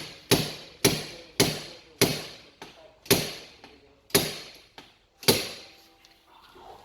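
Paintless dent repair glue puller yanking on a glued tab on a car door panel: seven sharp metallic clacks, each ringing briefly, coming further apart toward the end, with a couple of lighter knocks between them.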